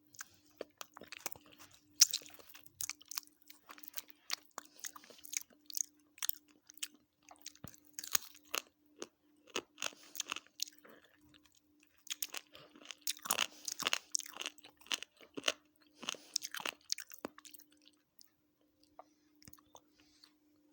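Close-miked chewing and crunching of a chicken biryani meal: wet, clicky mouth sounds that come thick for most of the stretch and thin out near the end. A faint steady hum sits underneath.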